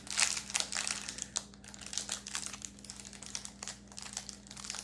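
Foil wrapper of a Prizm football trading-card pack crinkling and crackling in irregular bursts as it is handled and opened.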